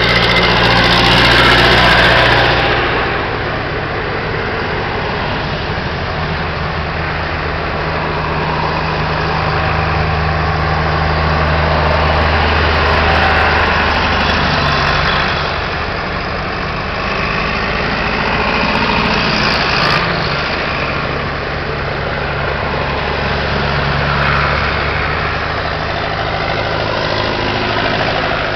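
A line of farm tractors' diesel engines running as they drive past one after another, a low steady engine hum that swells louder several times as each tractor passes. Near the end, cars follow.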